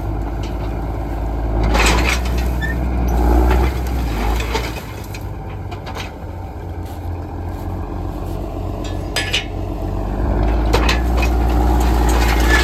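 Heavy diesel vehicle engine running with a deep rumble, with a few sharp metallic knocks. The rumble drops away for several seconds partway through and then comes back.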